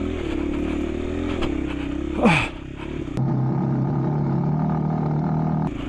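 Motorcycle engine running under load as it climbs a steep, rough road. About two seconds in there is a brief falling sound. About three seconds in the engine settles to a lower, steadier note for the next couple of seconds.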